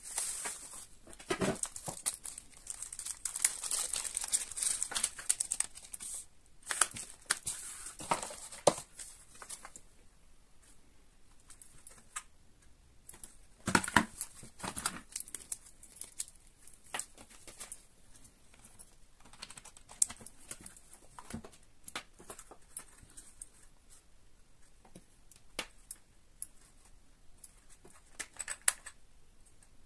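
Bubble wrap and plastic packaging crinkling and rustling as it is unwrapped and handled, dense for the first ten seconds, then sparser rustles and light clicks, with a louder crackle about halfway through.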